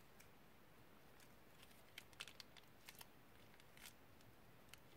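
Faint crinkling and small clicks of a plastic piping bag being squeezed to pipe out slime, clustered in the middle of an otherwise near-silent stretch.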